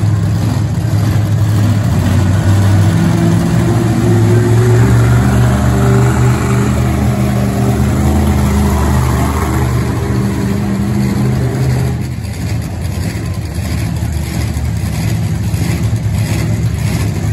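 The Shark Attack monster truck's engine running loud, its note stepping up and down as it is driven onto the dirt course, then easing off about twelve seconds in.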